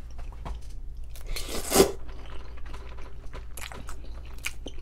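Close-up eating sounds: a loud slurp of instant noodles off a fork about a second and a half in, then chewing with many small mouth clicks.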